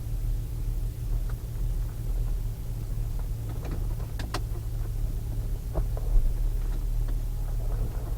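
The V8 of a 2000 Pontiac Trans Am Firehawk running at a steady low rumble that neither rises nor falls, picked up by a poor-quality camera microphone. A few sharp clicks come about four and six seconds in.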